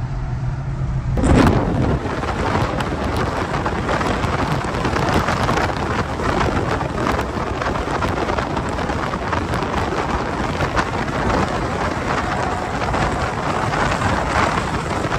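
A car engine running, then about a second in a sudden loud onset and a dense, continuous rush of vehicle noise that covers it.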